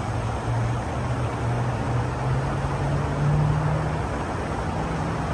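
A motor running with a steady low hum whose pitch slowly rises over about four seconds, dips briefly, then returns, over an even rushing noise.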